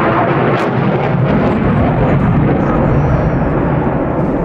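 Jet aircraft in flight, its engines giving a loud, steady roar.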